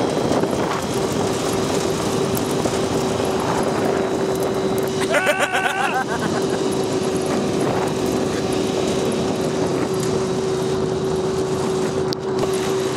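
Steady drone of a vehicle engine with one unchanging hum. About five seconds in, a sheep bleats once, a short wavering call.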